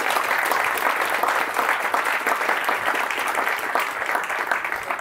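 Audience applauding, a dense mass of hand claps that eases off slightly near the end.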